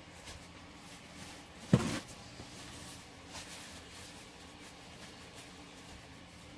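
A single sharp knock a little under two seconds in, with faint clicks and rustles of handling around it.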